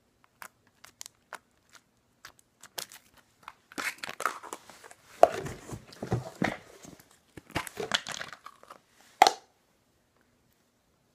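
Slime being stretched and poked by hand: scattered small clicks and pops, then a denser spell of crackly, squishy popping in the middle, ending in one sharp pop about nine seconds in.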